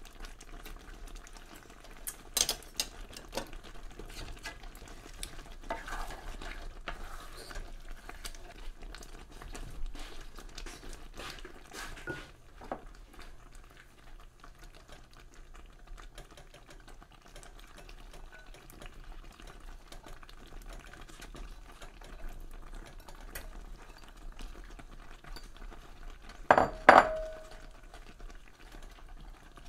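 Cooking in a pan of chicken stew: a utensil stirring and knocking against the pan with scattered sharp clicks, then two loud clanks near the end, the second ringing briefly.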